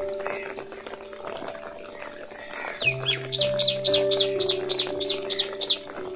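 Background music of sustained, held notes. From about three seconds in, a bird repeats a short, high call about nine times in quick succession, louder than the music.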